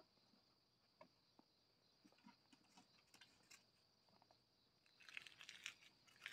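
Near silence: faint scattered scuffs and clicks of puppies moving about, thickening into a run of soft crackles about five seconds in.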